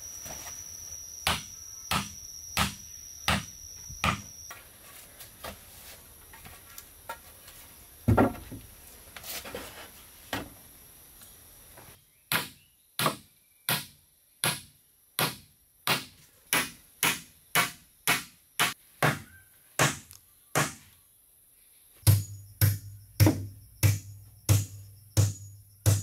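Hammer blows on wooden boards, coming in runs of about one and a half blows a second. A pause with small knocks and one heavier knock comes about eight seconds in, and the blows grow heavier near the end.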